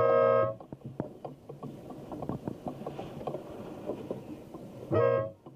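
Race starting horn giving short blasts of about half a second each, one right at the start and another near the end, on a steady pitch. Between the blasts there are small knocks and splashing water.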